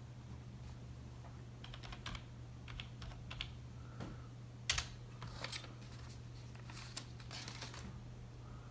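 Typing on a computer keyboard: irregular keystrokes while a serial number is entered, over a steady low hum.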